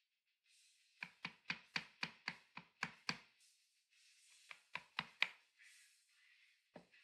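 Turned wooden carver's mallet striking a narrow chisel as it chops into hard maple: about nine sharp knocks at roughly four a second, a short pause, four more, then a single knock near the end.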